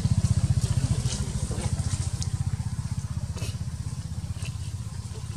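A small engine running at a steady low idle, its low rumble pulsing rapidly and evenly, with a few faint, brief high-pitched sounds over it.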